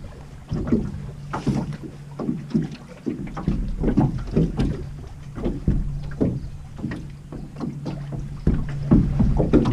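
Water slapping and knocking against the hull of an aluminium jon boat in rough chop, irregularly, about twice a second, with a faint steady low hum underneath and wind rumbling on the microphone.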